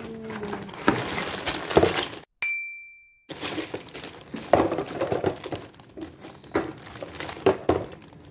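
Plastic toy parts and packaging being handled, with irregular clicks, clinks and crinkling. About two seconds in, everything drops out for about a second, opening with a short high ding.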